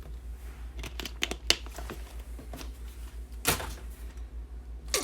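Trading cards and card packs being handled on a table: scattered sharp clicks and short crinkling rustles, over a steady low electrical hum.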